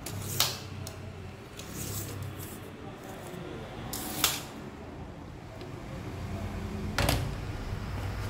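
A TOTAL 5 m steel tape measure with a plastic case being handled: sharp clicks about half a second and four seconds in as the blade is worked and runs back into the case, with a soft rustle of the blade between them. Near the end comes a knock as the case is set down on a table.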